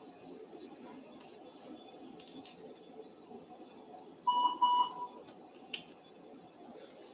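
Two short electronic beeps from operating-room equipment, back to back at one steady pitch about four seconds in, followed a moment later by a sharp click, over faint room noise.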